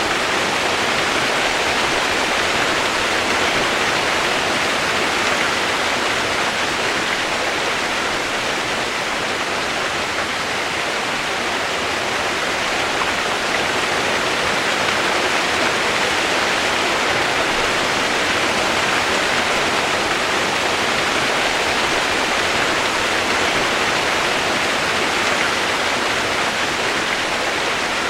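Steady, unchanging hiss of rain, an even wash of sound with no separate drops standing out.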